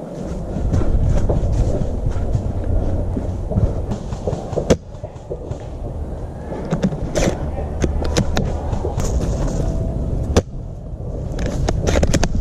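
Steady low rumble on the microphone, broken by a handful of sharp clacks from airsoft guns in play. The sharpest clacks come about five seconds in and in a cluster around seven seconds.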